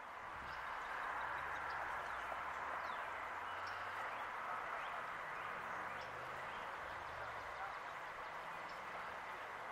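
Steady rush of a fast-flowing river, with faint bird chirps now and then and a low distant motor hum underneath.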